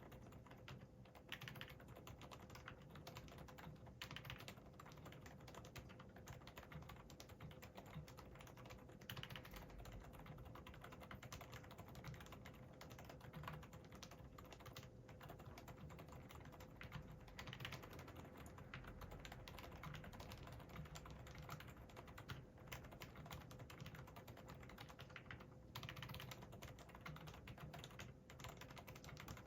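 Fast, continuous typing on a Hansung GK787SE OfficeMaster mechanical keyboard with Hawk 40g silent tactile switches (non-click, brown-type, factory-lubed): quiet, soft keystrokes.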